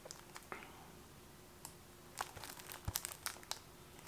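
Faint crinkling of the plastic shrink-wrap on a disc case as it is handled and turned over, in scattered short crackles, most of them about two to three and a half seconds in.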